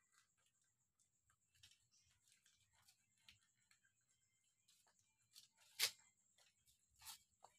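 Faint scattered clicks and crunches of cats eating dry kibble from a metal bowl, with a sharper click about six seconds in.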